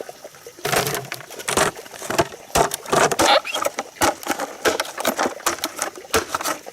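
Irregular knocks, taps and scrapes of bamboo being handled and worked with hand tools.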